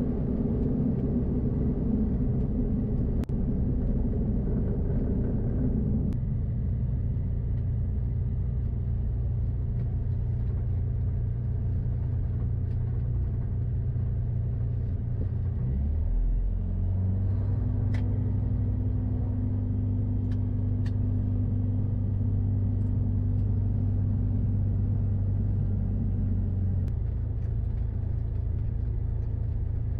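Sling 4's Rotax 914 turbocharged four-cylinder boxer engine and propeller running steadily at low taxi power. The engine note drops about six seconds in, glides to a new steady pitch around a quarter of a minute in, and changes again near the end.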